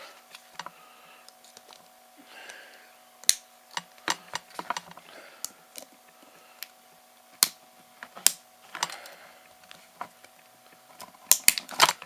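Plastic laptop battery case being cut and pried open along its sealed seam with a hobby knife: irregular sharp clicks and cracks of the plastic with short scraping strokes, and a quick cluster of cracks near the end. A faint steady hum runs underneath.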